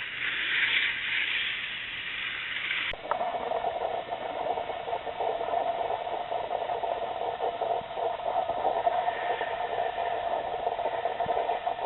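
K'Nex toy roller coaster running, a steady fast rattle of its motor and plastic cars on the track. The sound changes abruptly about three seconds in, from a hissy whir to a lower, fluttering clatter.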